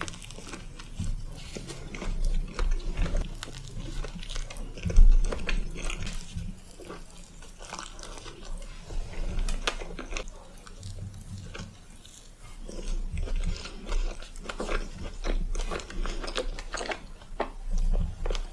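Close-miked biting and chewing of crisp choux pastry from a strawberry cream puff: repeated sharp crunches and crackles of the baked shell between softer chewing, the loudest crunch about five seconds in.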